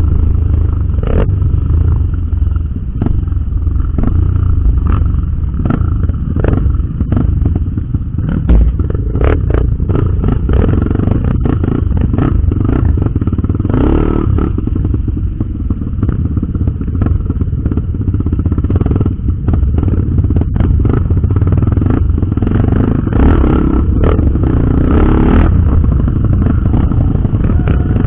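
A Honda XR 250 Tornado trail motorcycle running while being ridden over rough ground, with frequent knocks and rattles from the bike jolting over bumps.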